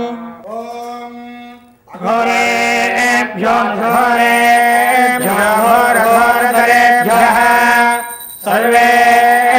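Male voices chanting a Vedic Sanskrit mantra in unison on a few held notes. A long closing note fades out at the start, and the chant resumes about two seconds in, with a short break near the end.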